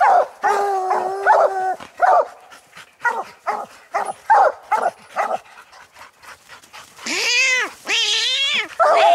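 Coonhounds bawling and barking up a tree, the tree bark that tells the hunter a raccoon is treed. A held bawl, then a string of short chop barks, then two long rising-and-falling bawls near the end.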